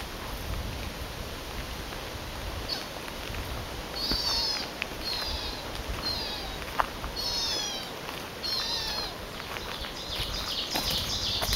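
High, mewing animal calls, each sliding down in pitch, repeated about once a second from about four seconds in, with a louder, tangled run of calls near the end. The caller is unseen; it is wondered to be a pheasant.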